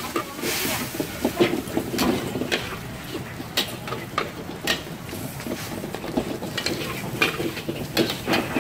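Metal wok spatula scraping and knocking against a steel wok in irregular strokes as noodles, bean sprouts and eggs are stir-fried, over a steady hiss of sizzling.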